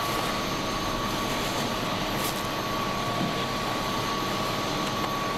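Steady engine drone with a thin, steady high whine running through it.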